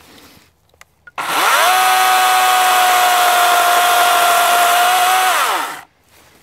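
WEN 40-volt brushless battery chainsaw (model 40417) spinning up about a second in, running at a steady high whine as the bar cuts into a log, then winding down near the end.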